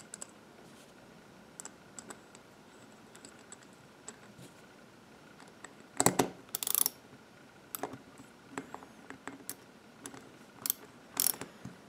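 Small metal clicks and clatter of hand tools and carburetor parts being handled, with the loudest bursts of rattling about six seconds in and again near the end.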